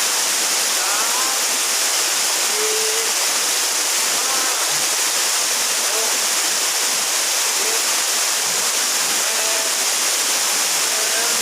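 Waterfall: a steady, hissing rush of falling water that does not let up.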